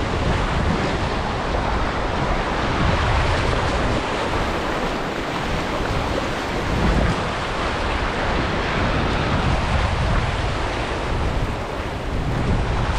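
Waves breaking and wind blowing across the microphone: a steady, loud rushing noise with a rumbling low end.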